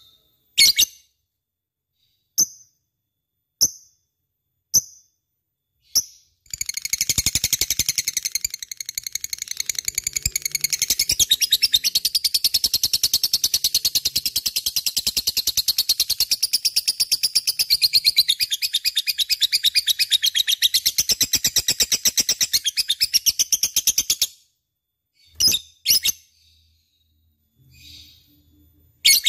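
Lovebird calling: a few single sharp chirps about a second apart, then a long, fast, unbroken chatter of high-pitched chirps lasting about eighteen seconds, then a few more single chirps near the end.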